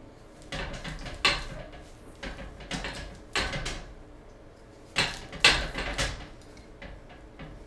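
Scuffling and knocking as a small dog kicks and struggles in a fabric hammock sling hung from a metal bar while its back paw is held: a series of short rustling bursts with sharp knocks, the loudest about a second in and again about five and a half seconds in.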